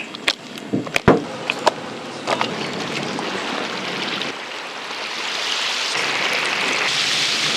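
Hot oil sizzling in a deep fryer, with a few sharp clacks of utensils in the first couple of seconds; the sizzle grows louder and more hissing from about halfway.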